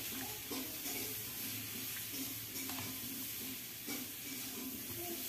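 A spoon knocking against a stainless-steel bowl of dumplings in soup a few times, over a steady low hum and hiss.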